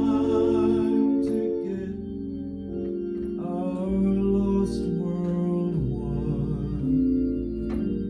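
Hammond organ playing a slow gospel hymn tune, with held chords under a melody line.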